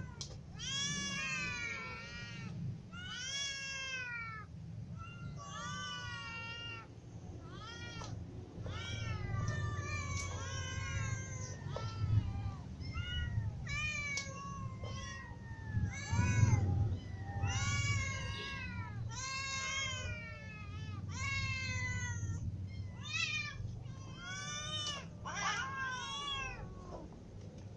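A group of hungry domestic cats, kittens and adults, meowing over and over for food. Their rising-and-falling calls follow one another every half second or so and often overlap.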